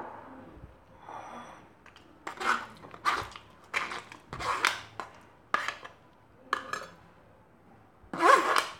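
Steel spoon scraping and knocking against a stainless steel mesh strainer while tamarind pulp is pressed through and cleared off: a series of short metallic scrapes and clinks, with a louder clatter near the end.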